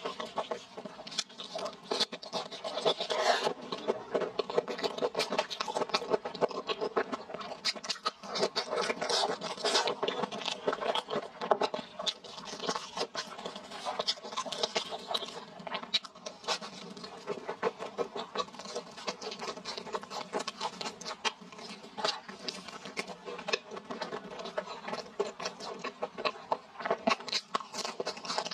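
Close-miked chewing of crumb-coated fried skewers: a dense, irregular stream of crunching crackles with wet mouth sounds.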